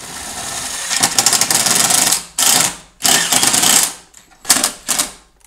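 Power drill boring a 5/16-inch hole in polycarbonate sheet, running steadily for about two seconds and then in short stop-start bursts. The cheap bit's shaft is spinning loose in its shank socket instead of cutting cleanly.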